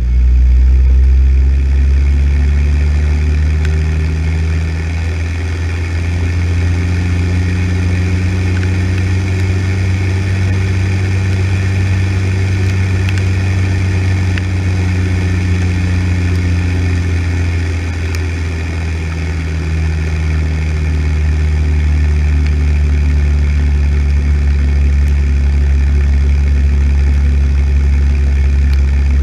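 Deutz-Fahr tractor's diesel engine running steadily under way, a deep drone with its pitch sagging slightly twice.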